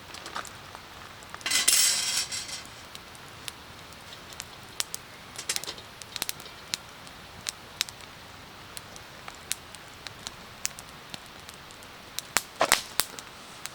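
Wood campfire crackling, with scattered sharp pops at irregular intervals. A louder rustling burst lasts about a second, starting about a second and a half in.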